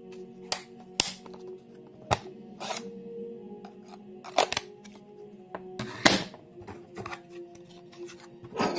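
Background music with steady sustained tones, over about seven sharp clicks and knocks at irregular intervals, the loudest about one second and six seconds in, and a short rattling cluster near the end.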